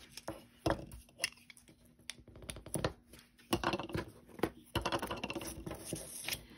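Double-sided tape being pulled off its roll, torn and pressed onto cardstock: a string of sharp clicks with two longer stretches of dense crackle about three and a half and five seconds in. Paper being handled near the end.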